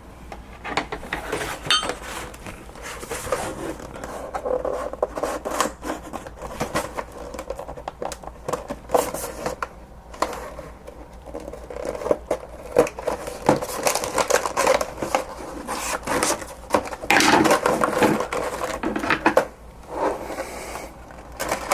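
An action-figure box of cardboard and clear plastic being opened by hand: a steady run of scrapes, crinkles and clicks, with louder handling near the end.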